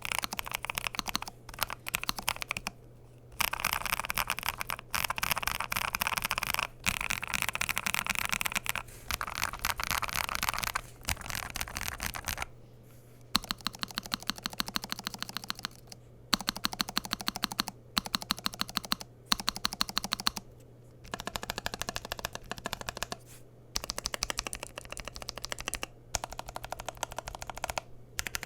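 Fast typing on a low-profile mechanical keyboard with Kailh Cloud Series Pulse tactile switches, PBT/PC keycaps and a gasket-mounted aluminium case: rapid clacky keystrokes in runs of a few seconds, broken by short pauses.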